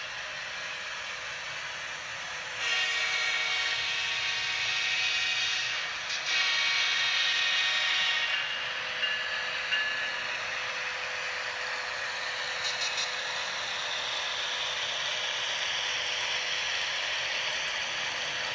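Model diesel locomotives' sound-decoder audio from small onboard speakers: a horn sounds in two long blasts a few seconds in, over a steady hiss and drone of the diesel engine sound and running train.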